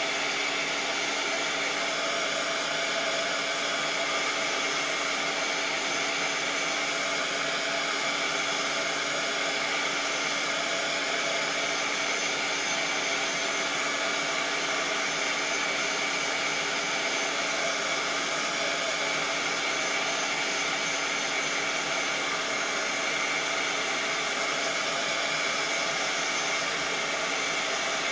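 Handheld craft heat gun running steadily to dry Mod Podge glue on a decoupaged napkin: a constant blowing whir with a steady whine in it.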